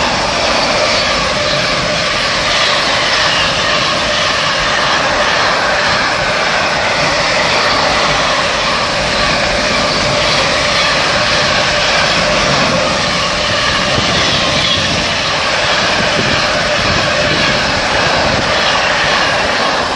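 Class 68-hauled intermodal freight train passing through the station, a loud, steady rush of wheels on rail and wagon noise that holds at one level throughout.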